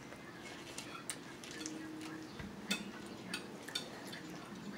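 A metal fork clicking and scraping against a ceramic plate while spaghetti is twirled, a few sharp clinks with the loudest nearly three seconds in.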